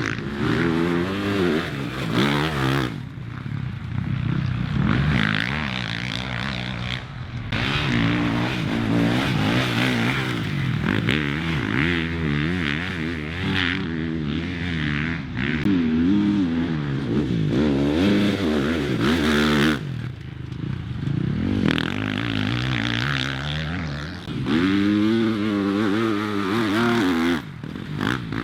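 Off-road racing engines revving hard and easing off again and again as vehicles pass, the engine sound rising and falling in pitch, with several abrupt breaks.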